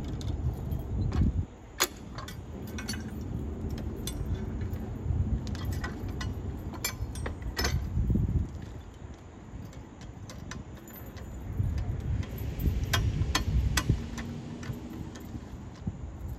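Hand-thrown railroad switch stand being worked: metal clinks and clanks from its handle and latch, with heavier low thuds each time the lever is moved.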